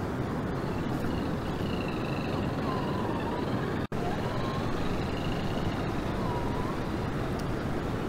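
Steady rush of a mountain creek's flowing water, with a few faint wavering whine-like tones over it. The sound cuts out for an instant just before halfway.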